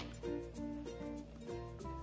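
Background music: a melody of short notes over a steady low bass.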